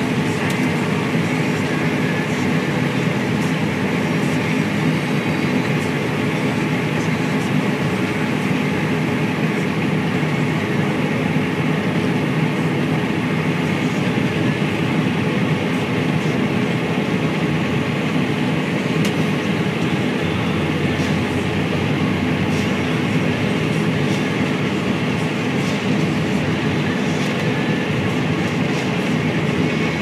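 Combine harvester running steadily while harvesting, heard from inside the cab: a loud, even engine and threshing drone.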